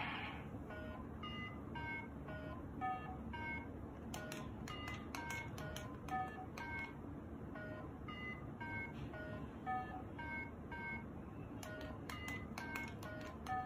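Handheld four-button colour memory game (Simon-style) playing a sequence of short electronic beeps at differing pitches, about three a second, one tone per coloured button. Sharp clicks of its buttons being pressed are mixed in, in two stretches.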